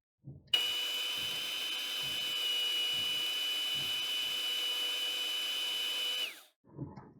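Electric coffee grinder motor running steadily with a high whine, which drops in pitch as it winds down and stops near the end.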